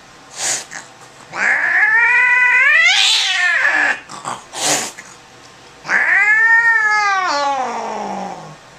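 Angry domestic cat yowling while held down by the scruff for examination: two long, drawn-out yowls, each rising then falling in pitch, with short sharp sounds between them.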